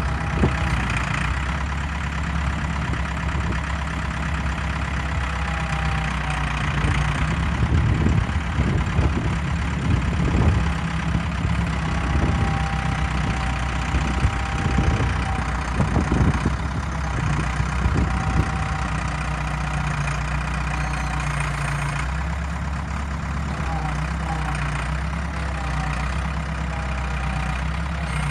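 Ford 655 backhoe's engine running steadily throughout, with a string of sharp knocks and thumps from about a third to two thirds of the way through.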